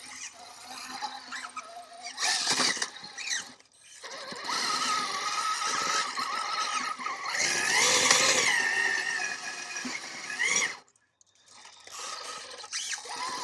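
Axial SCX6 RC crawler's electric motor and drivetrain whining under throttle in bursts, the pitch rising and falling as it climbs, ending in a short rising whine before it cuts off suddenly.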